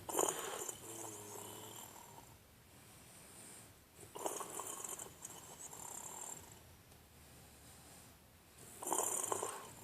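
Snoring in a sleeper's slow breathing rhythm: three loud snores about four seconds apart, each starting abruptly and then trailing off, with quieter breaths between them.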